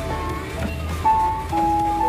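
Simple electronic tune from a children's ride-on electric Jeep's built-in music player, one held note after another.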